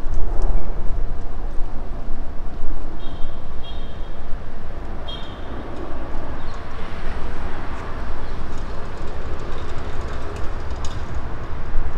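Wind buffeting the microphone in a heavy low rumble, over a steady wash of city traffic noise. A few short high chirps come about three to five seconds in.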